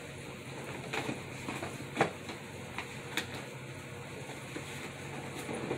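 A dog nosing and shoving a taped-up cardboard box across the carpet: scattered light knocks and rustles of cardboard, the sharpest about two seconds in.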